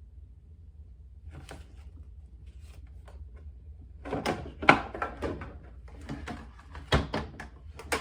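A low steady hum, then from about four seconds in a quick, irregular run of sharp knocks and clatters.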